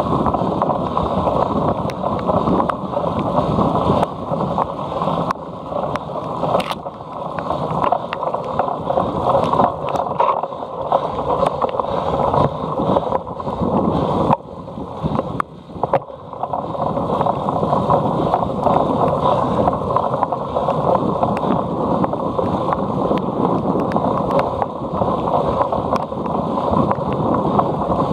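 Wind rushing over the microphone while a cyclocross bike rattles over rough ground, with frequent knocks and clicks; it eases for a moment a little past halfway.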